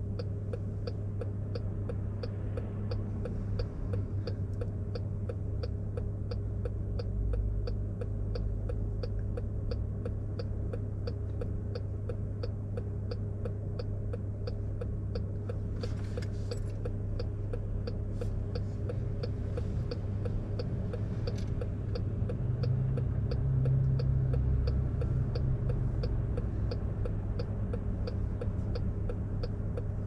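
Turn-signal indicator of a stopped 2020 Chrysler Pacifica Hybrid ticking in an even, steady rhythm inside the cabin, over the low steady hum of the car's hybrid drivetrain. The hum swells somewhat about two-thirds of the way through.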